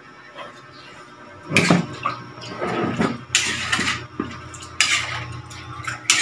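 A metal ladle clinking and scraping against a metal wok in several separate strokes.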